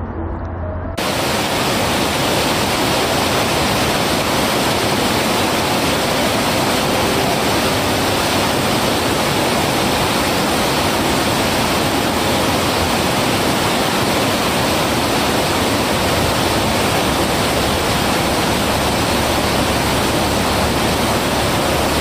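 Rushing water of a rocky stream's rapids: a loud, steady, even hiss that starts abruptly about a second in.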